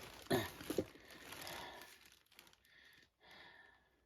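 A filled potato sack rustling as it is laid down on a scale, with two short, sharp sounds in the first second, then softer rustling that dies away.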